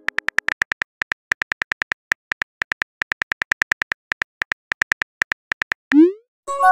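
Simulated phone-keyboard key clicks, rapid and uneven, about seven a second, as a text message is typed. About six seconds in, a short rising swoosh marks the message being sent, and a ringing chime starts just before the end.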